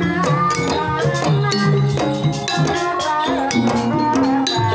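Javanese gamelan playing a Banyumasan tayub piece: hand-struck kendang drums and hanging bronze gongs, with a sinden's wavering sung line over the ensemble.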